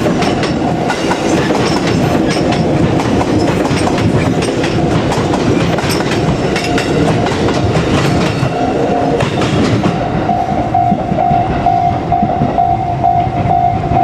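JR Kyushu 787-series electric limited express train running past, its wheels clattering over the rail joints. A Japanese level-crossing warning bell rings throughout in a steady pulsing beat, clearer from about ten seconds in.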